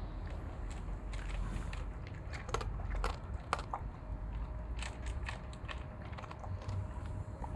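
German shepherd dog chewing food, with irregular sharp crunches that come thickest a few seconds in.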